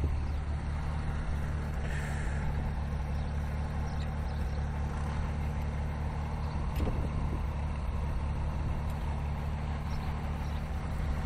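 Tractor engine idling steadily, a low even hum with no change in speed.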